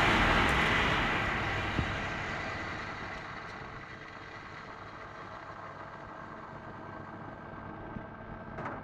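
Colchester CNC lathe spindle and chuck spinning down: the whirring machine noise, with a faint high whine, fades steadily over the first four seconds as the chuck slows. A lower steady machine hum remains after that.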